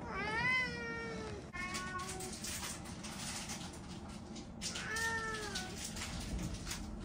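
Domestic cats meowing: a long meow that rises and falls in pitch near the start, a short one right after it, and another drawn-out meow about five seconds in.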